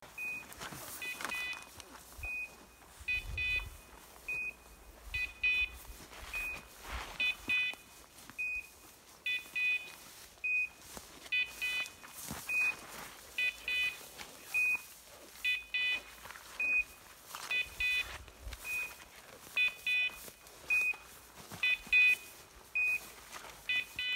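Electronic beeper collar on a hunting English setter, sounding a short high beep that alternates with a quick triple beep, about once a second, over faint rustling of brush.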